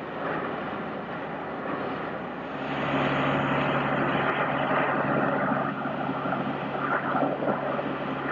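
High-pressure water jet from a Falch jetting machine hissing against a building's facade panels as grime is blasted off. About two and a half seconds in it grows louder and a steady low hum joins it.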